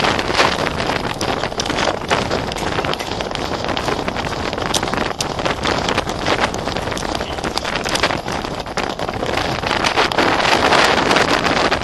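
Wind buffeting the microphone of a camera riding on a horse moving fast through shallow water, with the hooves splashing in many short sharp bursts. It grows louder near the end.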